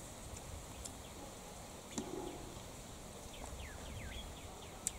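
Birds chirping over quiet outdoor background noise: scattered short, falling chirps, most of them in the second half, with two sharp clicks, one about two seconds in and one near the end.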